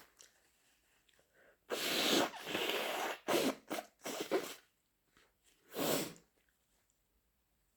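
A person sneezing: a cluster of loud, noisy bursts starting about two seconds in, the first the longest, followed by shorter ones, and another single burst about six seconds in.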